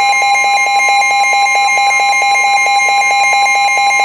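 Weather radio warning alarm: a loud, steady tone near 1 kHz with a lower tone pulsing rapidly over it, about ten beeps a second, announcing a severe thunderstorm warning.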